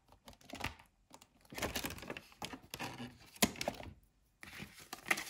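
Paper ten-euro banknotes rustling and crinkling as they are handled and laid down, in irregular soft crackles and light taps with a short break about four seconds in.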